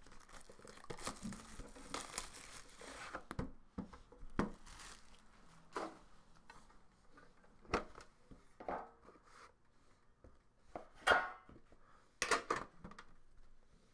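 Plastic shrink wrap crinkling and tearing as it is stripped off a trading-card box for the first three seconds or so, then scattered clicks and knocks as the metal card tin inside is handled and its lid lifted off, the sharpest near the end.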